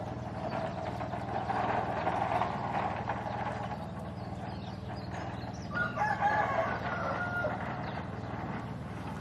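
A rooster crows once, about six seconds in, over a steady low hum.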